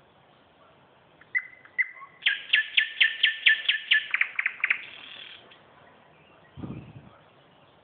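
A small songbird sings one phrase. It opens with two short notes, then runs into a string of quick repeated notes that speed up and end in a short buzzy flourish. A brief low thump comes near the end.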